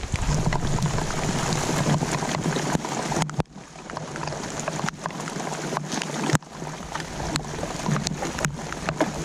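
Steady patter of rain falling on lake water around a canoe, with paddle strokes and scattered close drops clicking. The sound breaks off and starts again abruptly twice.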